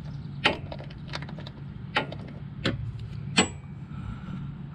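Sharp metallic clicks, five of them a little under a second apart, as a wrench works the 11/16 nut on a motorcycle oil filter to spin it off. The last click rings briefly.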